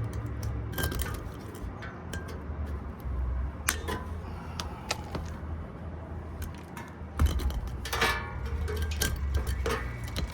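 Scattered metallic clicks and clinks of tools and parts being handled during condenser fan motor work, loudest in a quick cluster about three-quarters of the way in, over a steady low machinery hum.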